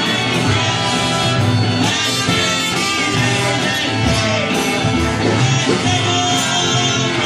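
Live rock band playing a song with electric guitar, bass and drums, with some singing.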